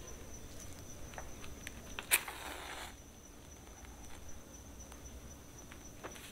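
A match is struck about two seconds in: a sharp scrape, then a brief hiss as it flares. Crickets chirp steadily in the background, with a few faint clicks and rustles.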